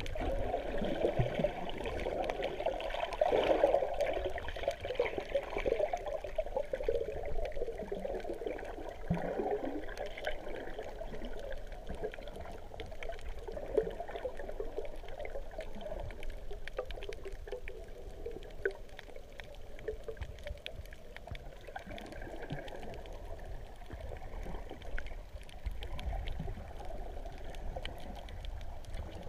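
Muffled underwater sound heard through a GoPro's waterproof housing: water swishing and bubbling, loudest in the first few seconds, with faint scattered clicks.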